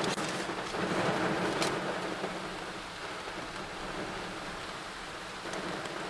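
Heavy rain falling steadily, heard from inside a truck, slowly getting quieter.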